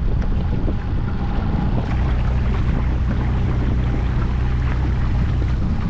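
Small Gheenoe LT10 skiff underway: a steady low motor hum under the rush of water along the hull, with wind on the microphone.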